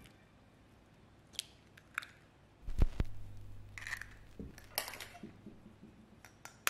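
A raw egg being cracked and dropped onto a glass dish of baked beans: a few small taps, one sharper crack near the middle, then light crackling and clicks of the shell.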